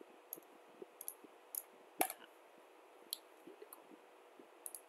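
Computer mouse clicking: a handful of short, sharp clicks at irregular spacing, the loudest about two seconds in, over faint room hiss.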